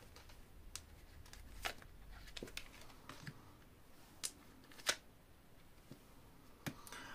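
Faint, scattered clicks and taps of tarot cards being handled and laid down, about half a dozen sharp ones spread unevenly over low room tone.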